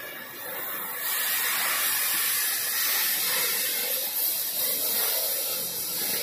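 Gas cutting torch hissing steadily as its flame and cutting jet burn through sheet steel, throwing sparks. The hiss grows louder about a second in.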